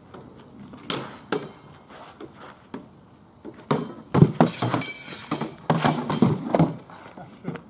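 Sword-and-shield sparring with Viking-age round shields: a couple of sharp knocks about a second in, then two quick flurries of blows, swords clattering on the shields and shields knocking together, one around the middle and another shortly after.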